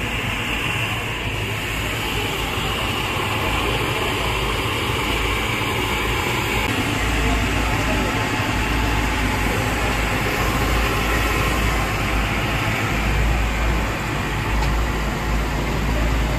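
Steady low rumble and hiss of street background noise, with no distinct sounds standing out.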